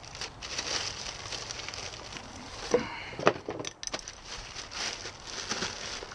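Plastic packaging crinkling and rustling as new brake parts are unwrapped by hand, with a few sharper clicks and knocks about three seconds in.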